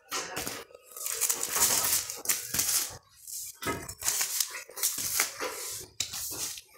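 Clear plastic outer sleeves of vinyl LP records crinkling and rustling as a hand flips through a stack of records, in several bursts with short pauses between them.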